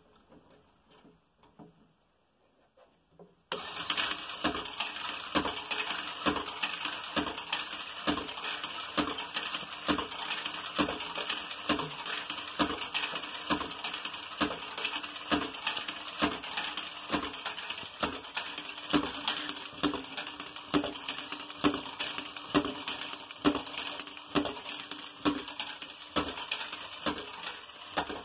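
LEGO Great Ball Contraption module running: its LEGO extra large motor turning the mechanism while plastic balls clatter through it in rapid, irregular clicks over a steady hiss. The sound starts suddenly about three and a half seconds in, after near silence.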